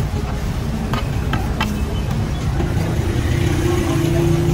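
Street traffic with a vehicle engine running close by. There are a few short clicks about a second in, and a steady droning tone over the last two seconds.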